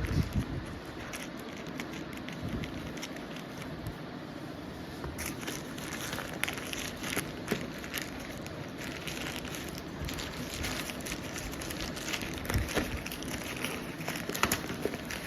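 Packaging handled by hand: irregular crackling, crinkling and small clicks, growing busier from about five seconds in.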